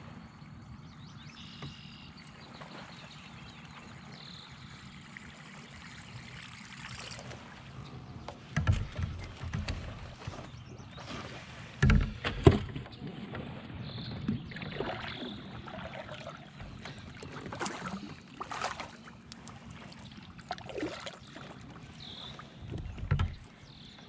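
Knocks and thumps of gear and body moving against a kayak, with lighter clatter between them. The sound starts about eight seconds in after a quiet stretch, and the loudest knocks come around twelve seconds in and again near the end.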